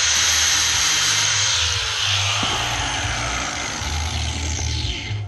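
Power grinder grinding the steel bucking spikes (dogs) of a chainsaw to sharpen them: a steady high, hissing whine of metal being ground, whose pitch falls from about halfway and fades, stopping at the end.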